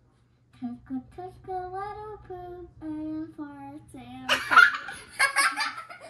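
A child singing a tune in long held notes, then loud excited squeals and laughter from about four seconds in.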